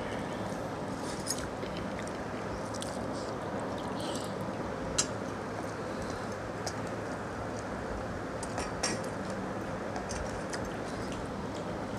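People eating with their hands from steel plates: soft squishing of rice and chewing, with a few light clicks, the sharpest about five seconds in, over a steady background hiss.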